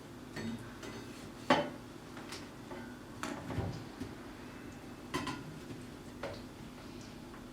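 Kitchenware being handled: a handful of separate clinks and knocks of dishes or utensils, the sharpest about a second and a half in, over a faint steady hum.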